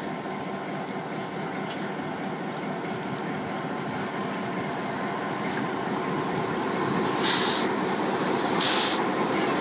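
Victorian Railways Y-class diesel locomotive idling steadily, growing louder near the end. Near the end come two short, loud blasts of compressed-air hissing from the locomotive, about a second apart, as it couples onto its carriages.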